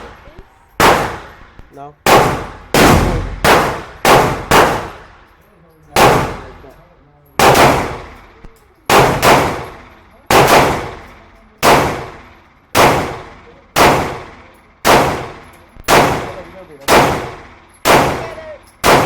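A rapid string of 12-gauge shotgun blasts, about one a second with a few coming closer together. Each shot is a sharp crack followed by a short echoing tail.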